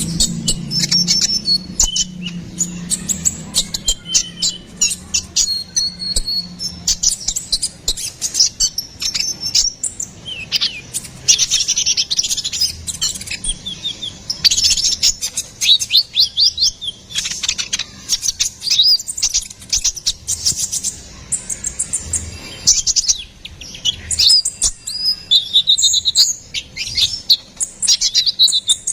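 Konin (kolibri ninja) bird singing at full voice in long runs of fast, high-pitched chirps and trills, one phrase tumbling into the next. A faint low hum sits under the first several seconds.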